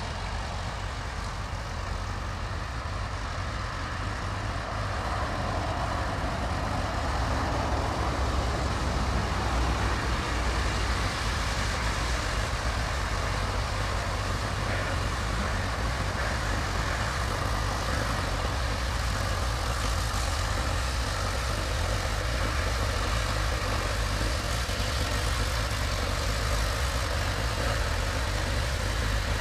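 NSW 32 class 4-6-0 steam locomotive 3265 arriving slowly, a steady low rumble with a broad hiss that grows louder about six seconds in as it draws near.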